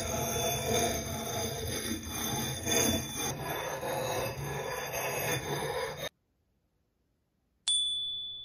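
Sharpening stone rubbed along a steel axe blade's edge, a steady gritty rasping that stops abruptly about six seconds in. Near the end, a single high metallic ding rings out and fades.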